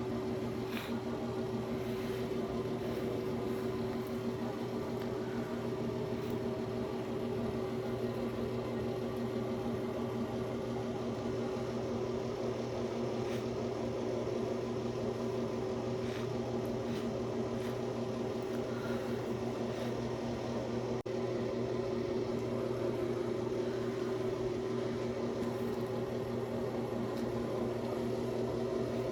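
A steady mechanical hum with a low drone, with a few faint short sounds scattered over it.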